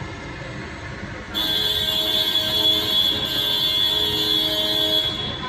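Steering making an abnormal noise while turned to full lock: a loud, steady high-pitched squeal that starts suddenly about a second and a half in and stops near the end.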